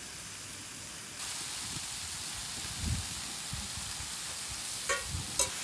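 Sliced pork sizzling on a griddle over a portable butane stove: a steady hiss like the sound of rain, getting louder about a second in. A couple of short light clicks near the end.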